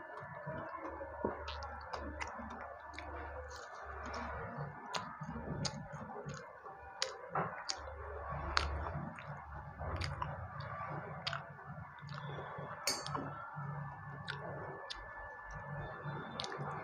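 Close-up chewing with many short, sharp, wet clicks, from a person eating panta bhat (rice soaked in water) and fried fritters by hand.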